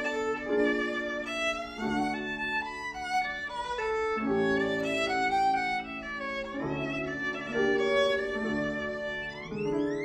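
Violin and Steinway grand piano playing jazz: a bowed violin melody over piano chords, the violin sliding steeply up in pitch near the end.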